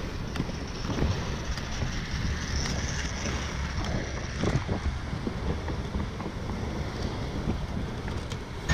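Steady wind rushing over the microphone, with a low rumble of skate wheels rolling on pavement.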